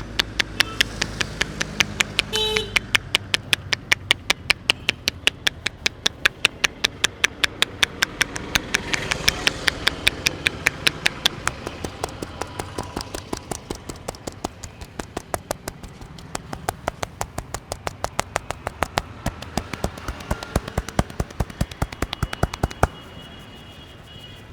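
Rapid, even slaps of a barber's hands tapping on the head during an Indian head massage, about four a second, stopping abruptly near the end.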